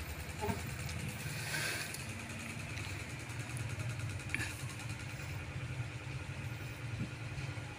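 Steady low rumble with a fast flutter: air from an electric fan buffeting the microphone.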